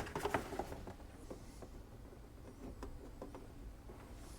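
Small clicks and rustling from a jumper wire being handled and pushed into a solderless breadboard: a cluster of clicks at the start, then a few faint ticks.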